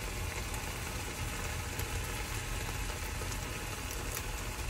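Onion-tomato curry base sizzling gently in a frying pan on an induction hob, over a steady low hum.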